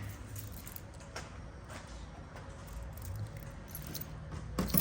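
Low steady hum with a few faint clicks, and a sharper knock near the end.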